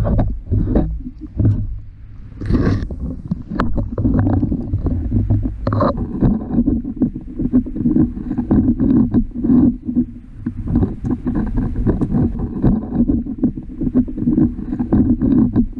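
Muffled underwater rumble and sloshing heard through a GoPro's waterproof housing on a poke pole, with frequent knocks and scrapes as the pole is worked between rocks.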